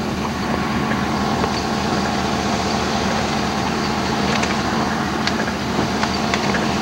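Car engine idling, a steady low hum heard from inside the car, with a few faint ticks.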